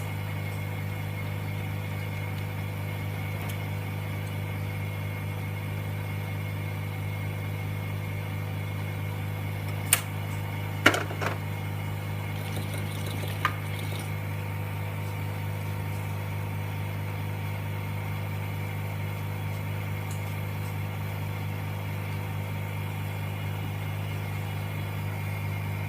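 Electric vacuum pump of an LCD refurbishing machine running with a steady low hum. A few light clicks and taps come about ten to fourteen seconds in.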